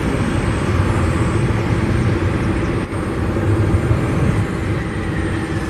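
Jet engines of a Boeing 747-400 freighter on its runway roll, loud and steady, mixed with a second jet airliner taxiing close by. Under a steady low hum, a faint high whine slowly falls in pitch in the second half.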